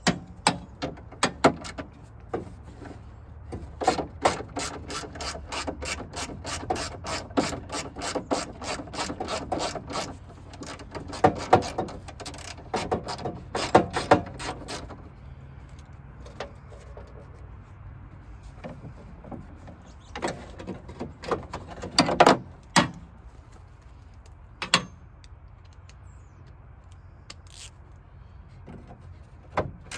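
Hand socket ratchet clicking steadily, about four clicks a second, as bolts are backed out of the tailgate window regulator. Afterwards come scattered metal clicks and a few louder knocks as the loosened parts are handled.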